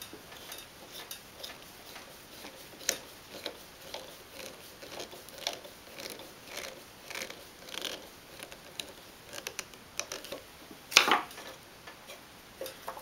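Hand screwdriver driving a No. 6 by 1/2-inch pan head sheet metal screw through an aluminum wheel bracket into wood: a run of faint, uneven clicks and ticks as the screw is turned. A louder knock about eleven seconds in.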